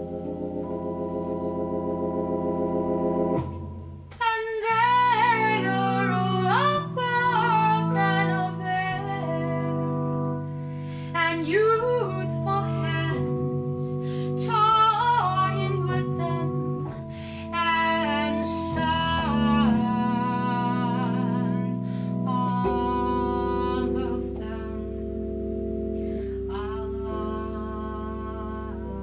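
Hammond B3 organ holding sustained chords. About four seconds in, a woman's voice joins, singing in phrases with vibrato over the organ.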